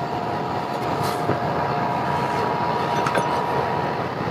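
Steady machinery noise with a thin steady whine over it, cutting off abruptly at the end.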